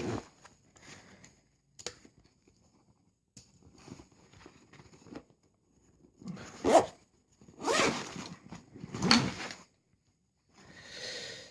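Bag zipper pulled open in four short strokes in the second half, after quieter rustling and handling of gear.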